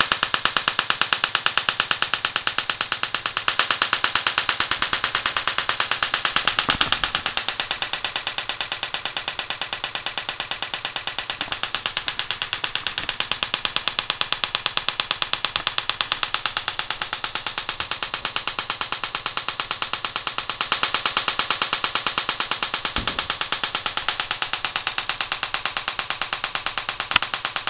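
High-voltage spark from an ignition coil, pulsed through a relay, arcing across a water-sprayed wire gap as a bright plasma: a fast, even rattle of snapping discharges that never stops.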